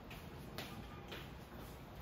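Faint light ticks, about two a second, over a low background hum.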